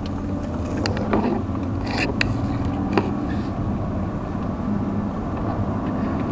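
Car heard from inside the cabin while driving: a steady low rumble of engine and tyres on the road. A few sharp clicks or rattles come in the first three seconds, the loudest about three seconds in.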